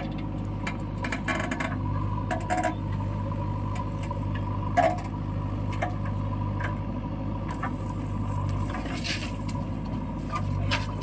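Heavy diesel machinery engine running steadily, with scattered clanks and knocks and one sharp clunk about five seconds in.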